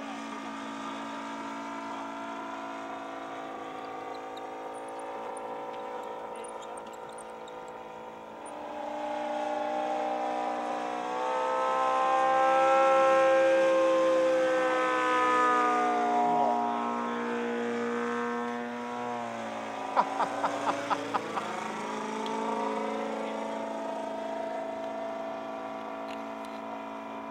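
Engine of a large radio-controlled Polikarpov Po-2 biplane model in flight: a steady drone that grows louder about nine seconds in as the plane passes close, its pitch sliding down as it goes by, then settling back to a steadier, quieter drone. A quick run of five or six sharp clicks comes about twenty seconds in.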